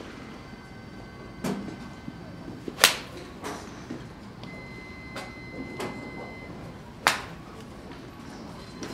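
Golf iron striking a ball off a range mat: one sharp crack about three seconds in, with a second loud crack a few seconds later and fainter clicks of other shots around them.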